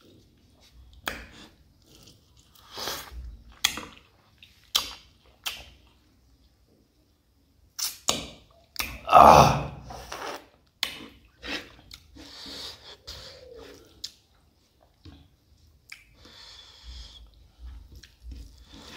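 Close-up eating sounds: a person chewing food, with wet mouth clicks and smacks, plus one louder, longer mouth sound about nine seconds in.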